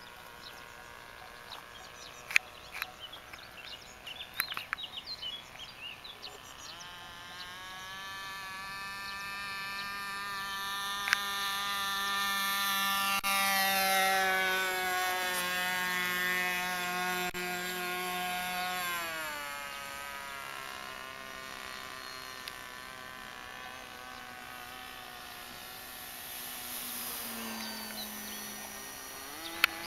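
Motor and propeller of a radio-controlled model airplane, a steady buzzing whine. It grows louder as the plane flies low past, then drops in pitch and fades about twenty seconds in.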